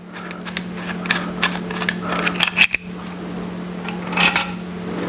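Light metal clicks and clinks of a connecting rod cap and its bolts being handled as the cap comes off the rod, over a steady low hum.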